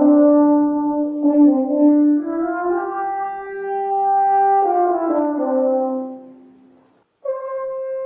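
French horn playing a slow melodic line of held notes, rising and then falling, that fades out about seven seconds in; a higher held note begins just after.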